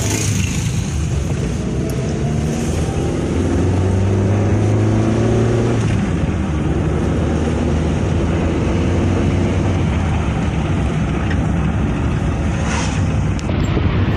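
Car engine and road noise heard from inside the moving vehicle: the engine note climbs steadily for the first six seconds, then drops away, leaving a steady rushing noise of tyres and wind.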